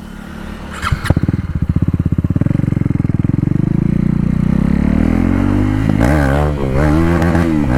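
KTM Duke 390 single-cylinder engine, loud with its stock silencer removed. It chugs in slow, distinct firing pulses after a knock about a second in, then rises steadily in pitch as the bike accelerates hard.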